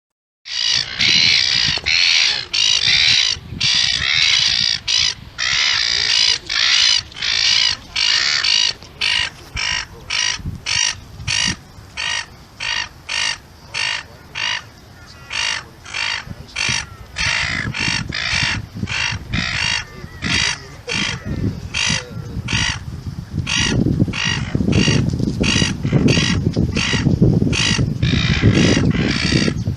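Gulls calling in a long run of short, harsh squawks, about two to three a second. A low rumble grows beneath the calls in the second half.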